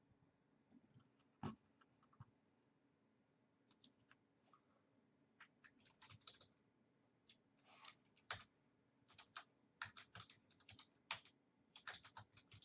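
Faint typing on a computer keyboard: irregular single key clicks, sparse at first and coming more often from about halfway through.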